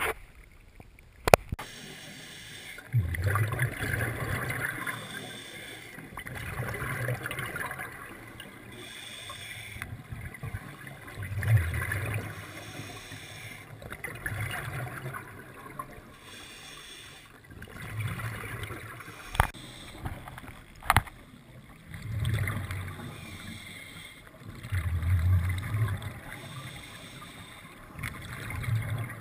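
Scuba regulator exhaust bubbles heard underwater, one gurgling burst with each exhaled breath, repeating about every three to four seconds. A few sharp clicks stand out between the breaths.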